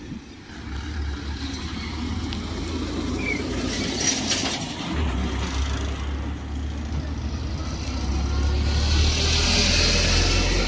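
A steady low outdoor rumble, with a broad hiss that grows louder over the last few seconds.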